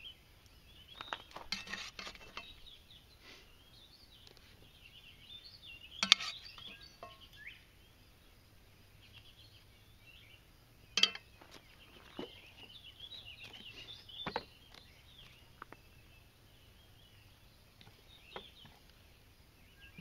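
Scattered clinks and knocks of metal cooking utensils against a cast-iron skillet and cookware, the sharpest about six and eleven seconds in, with birds chirping throughout.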